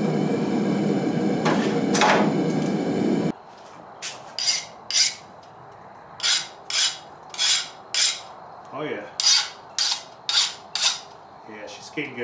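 A forge burner runs with a steady noise for about three seconds, then stops abruptly. After that, a hand file is drawn across the steel knife blade in a series of short rasping strokes, roughly two a second.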